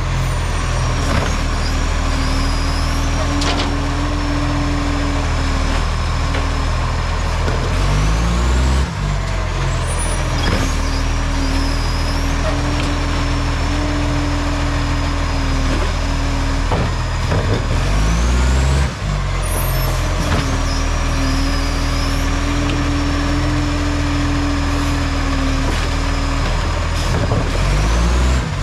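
Garbage truck's diesel engine running with an exhaust leak, revving up briefly about every ten seconds and then holding at a steady, higher pitch for several seconds before settling back.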